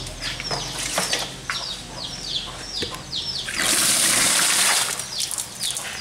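A bird chirps over and over, short falling chirps two to three a second, for about the first half. Then a loud rush of water gushing and splashing for about a second and a half, cutting off before the end.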